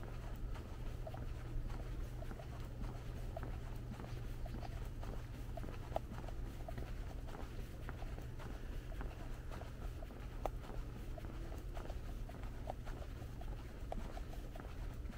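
Footsteps on a trail: a soft, irregular crackle of many small ticks, over a steady low rumble.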